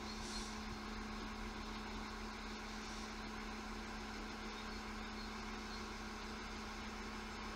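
Alstom Coradia LINT 41 diesel railcar idling at a station platform: a steady engine hum with one constant droning tone.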